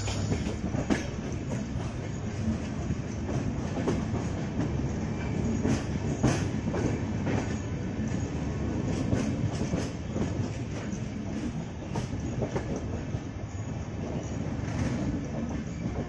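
Passenger train coaches running along the track, heard from an open coach door: a steady rumble with irregular clickety-clack of the wheels over rail joints.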